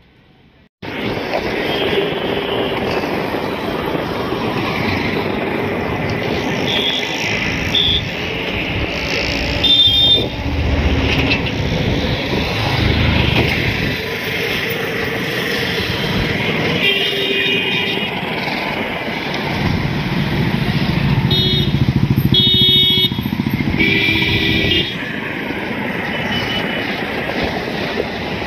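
Road traffic crossing a bridge: motorcycles and other vehicles running past, with horns tooting again and again, most often in quick runs of short honks about two-thirds of the way through. The sound starts abruptly just under a second in.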